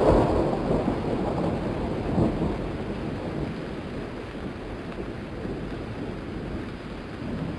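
Thunderstorm sound effect: steady rain with rumbling thunder. One thunder swell comes at the start and another about two seconds in, then the rain runs on evenly.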